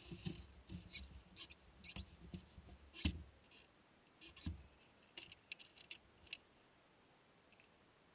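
Faint scattered clicks and short high chirps, with two low thumps about three and four and a half seconds in.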